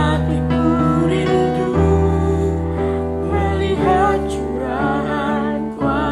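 A young man and a young woman singing a slow Indonesian song together, with vibrato on the held notes, over steady instrumental accompaniment with sustained bass notes.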